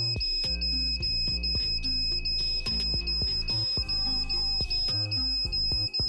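Piezo buzzer on a homemade smoke-alarm circuit sounding a steady high-pitched tone: the alarm is triggered during a test. Background music plays alongside it.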